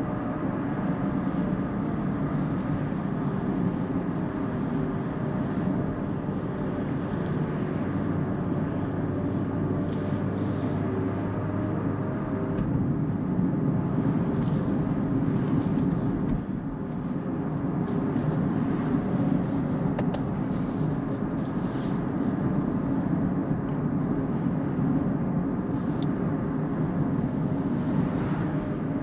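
Steady tyre and road noise with wind, heard inside the cabin of a Kia EV6 electric car cruising at about 80 km/h. Brief hissing swishes come and go from about 7 s onward as oncoming vehicles pass.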